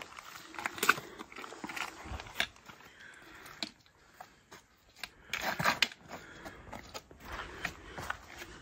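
Hikers' footsteps and trekking-pole tips clicking and scraping on a rocky trail, in an irregular rhythm, with a denser run of steps a little past the middle.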